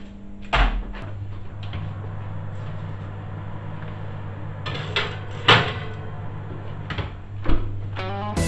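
A built-in Lamona oven's door is opened with a clunk, a foil-covered metal baking tray is slid onto the oven rack, and the door is shut with a couple of thumps, over a steady low hum. Music starts right at the end.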